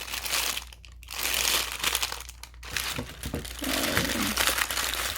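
Packaging crinkling and rustling as small shelf parts are handled, with a few light knocks.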